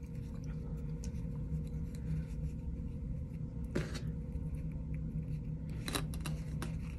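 Folded fabric strips rustling and small plastic sewing clips clicking as hands weave and handle a fabric star ornament, with a sharp click a little before halfway and a few more near the end. A steady low hum runs underneath.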